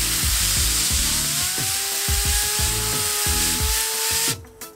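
Compressed-air blow gun hissing as it blasts a fidget spinner, with a whine that rises in pitch over the first two seconds as the spinner speeds up and then holds steady. The air cuts off suddenly about four seconds in.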